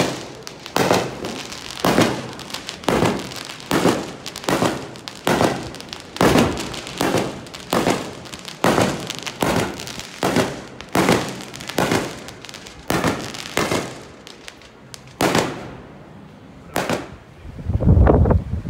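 Fireworks shells bursting in quick succession, about two sharp bangs a second, then two last bangs spaced further apart. Near the end, wind buffets the microphone.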